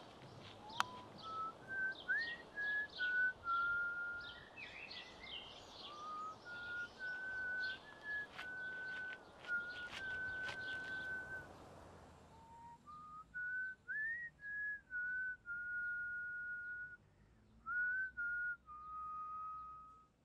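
A person whistling a slow tune, held notes stepping up and down with small slides between them. Birds chirp behind it for the first half, then the background goes quieter while the whistling carries on.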